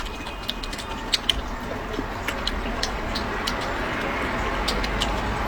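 Close-miked eating sounds: chewing with many small, irregular wet clicks and smacks from the mouth.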